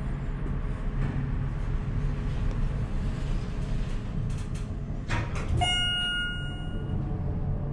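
Schindler MT/300A hydraulic elevator running with a steady low hum as the car travels and levels slowly. About five seconds in there is a click, followed by a single chime that rings for about a second.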